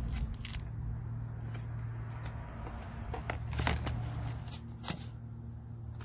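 A plastic blister pack being pulled open and peeled off its cardboard backing, giving crinkles and a few sharp snaps, the sharpest about five seconds in. A steady low hum runs underneath.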